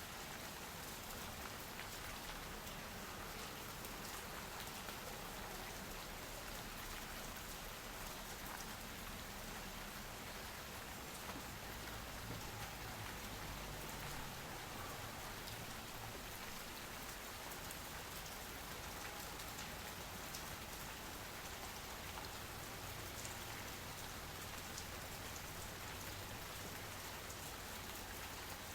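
Steady rain falling, with scattered drips and drops tapping on surfaces.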